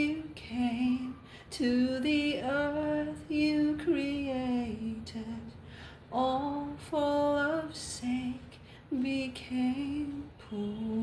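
A woman singing a worship song a cappella, with no accompaniment: slow phrases of held notes with short breaths between them.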